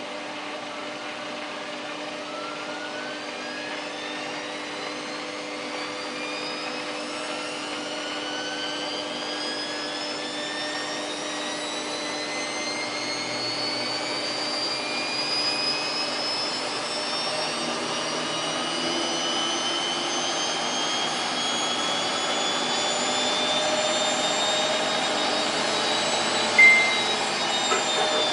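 Samsung WF8804RPA washing machine's drum spinning up in the service-mode spin test, its motor whine rising steadily in pitch and growing louder as the drum gathers speed. Two short beeps near the end.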